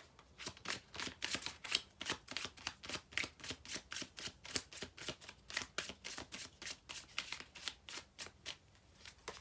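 Deck of tarot cards being shuffled by hand: a rapid run of soft card slaps and flicks, about four or five a second, stopping shortly before the end.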